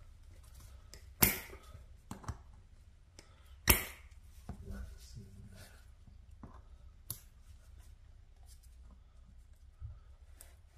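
Pliers working at a screw lodged in a car tire's tread, to pull out the screw that caused the puncture. Two sharp clicks, a little over a second and nearly four seconds in, with fainter ticks between.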